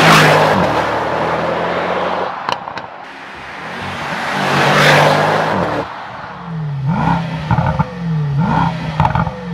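The twin-turbo V8 of a Mercedes-AMG GT 63 S E Performance driving past twice, each pass swelling up and fading away with the engine note and tyre noise. From about six seconds in, short rising swoops repeat a little under once a second.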